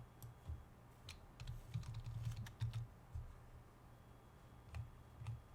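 Typing on a computer keyboard: a quick run of keystroke clicks with dull low thuds in the middle, and a few lone keystrokes before and after.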